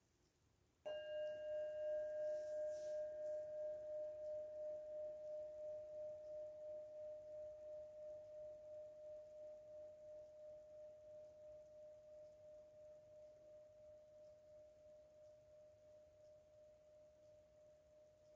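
A metal singing bowl struck once about a second in, then ringing on one steady tone that pulses gently and slowly fades; its higher overtones die away within the first couple of seconds.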